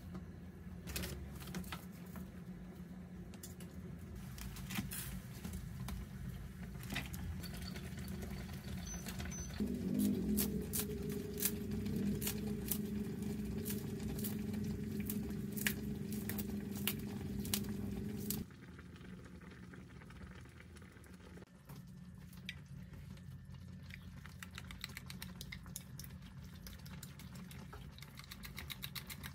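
A pot of doenjang jjigae (soybean-paste stew) bubbling on an induction hob, with many small pops and ticks. A louder low hum joins about a third of the way in and cuts off abruptly a little past halfway.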